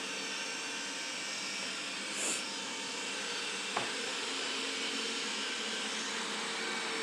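Roborock E4 robot vacuum running, a steady whirring hiss with a faint hum. There is a brief higher hiss about two seconds in and a single sharp tap a little before four seconds in.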